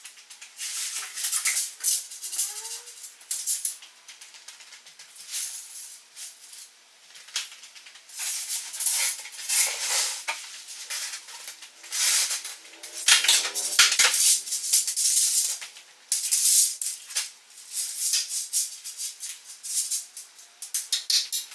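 Tent fabric and mesh of a Eureka Bon Echo Tour 600 rustling in irregular bursts as the tent is raised on its poles and the poles are fed through the screen.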